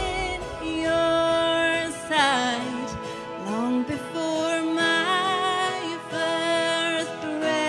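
A woman singing a slow worship song over instrumental accompaniment, holding long notes with a wavering vibrato.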